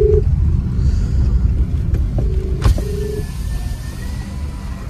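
Car driving on a winding mountain road, heard from inside the cabin: a steady low road and engine rumble. A short buzzing beep sounds at the very start, and a pair more a little over two seconds in, with a sharp click between them.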